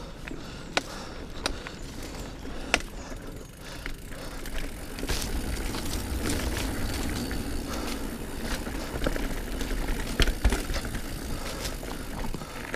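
Diamondback Release 3 full-suspension mountain bike ridden over rough trail: tyre noise and wind rumble on the microphone, with frequent sharp clicks and rattles of the bike over bumps, getting louder about five seconds in.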